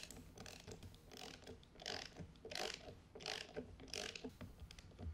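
Ratcheting torque wrench clicking in repeated short strokes as it tightens the nut on a battery's positive terminal.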